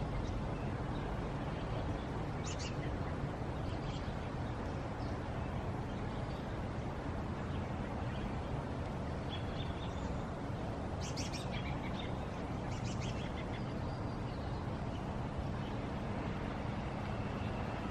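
Scattered short, high chirps from small birds over a steady low background rumble, with a cluster of chirps about eleven seconds in.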